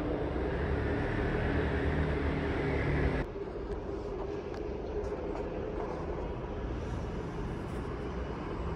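Diesel multiple-unit train running close by, its engine noise steady with a low hum. About three seconds in, the sound cuts off abruptly to a quieter, more distant train noise.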